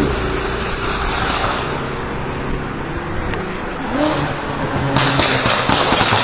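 BMW M5 F10 30 Jahre's twin-turbo V8, fitted with catless downpipes, running loud. It blips up in revs about four seconds in, then breaks into a rapid run of exhaust crackles and pops for the last second or so.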